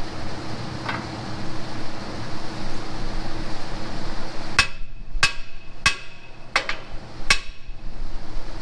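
Hammer striking steel: five or six sharp, ringing metal blows, about two-thirds of a second apart, in the second half.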